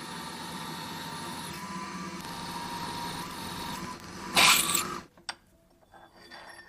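Milling machine running a 45-degree dovetail cutter on steel: a steady mechanical sound with a thin whine. About four and a half seconds in, a short loud burst of noise; then it drops to near quiet with a few faint clicks.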